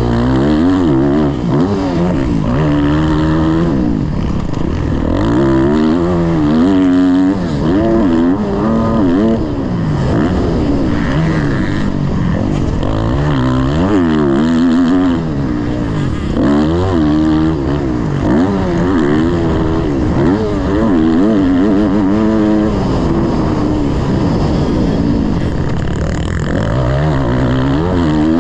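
Suzuki motocross bike's single-cylinder engine revving hard around the track, its pitch climbing and dropping over and over as the rider accelerates, shifts and backs off for corners, heard close up from the rider's helmet camera.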